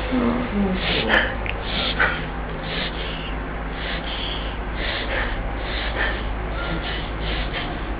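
A small dog's reverse-sneezing attack: a run of short, harsh gasping inhalations through the nose, about two a second. The owner takes these attacks for reverse sneezing.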